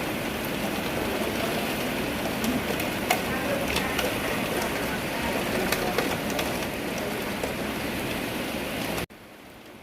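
Steady heavy rain with scattered sharp taps of drops striking a surface. A little past nine seconds it cuts off suddenly to a much quieter hiss.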